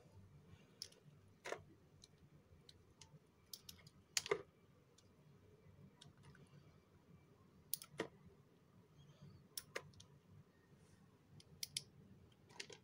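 Small knife cutting through a bar of dry soap, with sharp crisp cracks and clicks as the blade bites and flakes break off. They come irregularly, singly or in quick pairs, the loudest about four seconds in.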